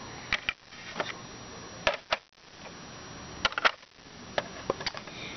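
Light clicks and knocks of small plastic toy figures being handled and set down on a plastic toy playset: a scattered handful of separate taps, roughly one or two a second.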